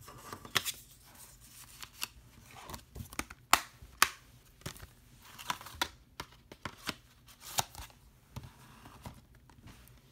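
A plastic Blu-ray case and its paper insert being handled: rustling with many sharp clicks and taps, two loud snaps about three and a half and four seconds in, as the case is closed and set down with its cardboard slipcover.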